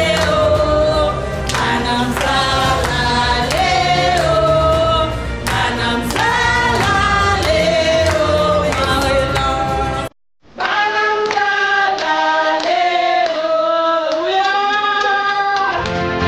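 A group of voices singing together, with hand-clapping in the first part. About ten seconds in the sound cuts out for a moment, and the singing resumes without the clapping and low accompaniment.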